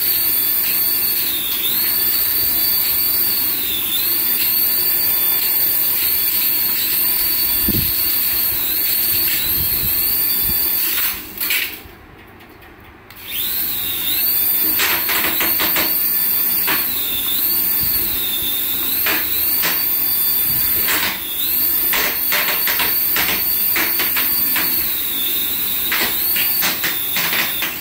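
Small electric motor of a radio-controlled toy whining, its pitch rising and falling over and over as the throttle is worked. It stops for a moment about twelve seconds in, then carries on.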